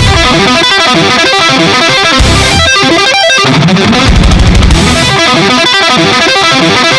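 Loud music with electric guitar.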